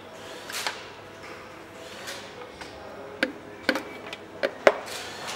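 Sharp metallic clicks and knocks from a piston ring compressor being worked against a V8 cylinder block while a piston is fitted into its bore: four or five clicks in the second half, the loudest near the end, after some soft handling swishes.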